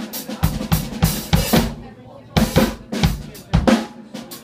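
Live acoustic drum kit played hard: bass drum and snare hits with bright cymbal crashes, breaking off for about half a second around two seconds in before the beat resumes.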